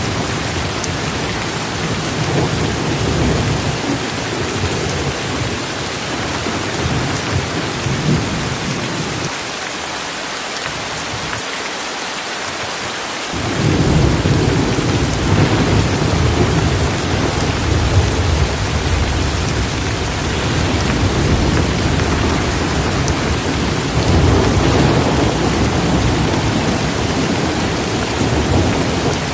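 Heavy rain falling steadily, with thunder rumbling low underneath. The rumble dies away for a few seconds near the middle, then comes back stronger.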